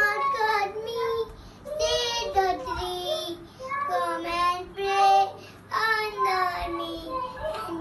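A young child singing a nursery rhyme solo, in short phrases with held notes and brief pauses between them.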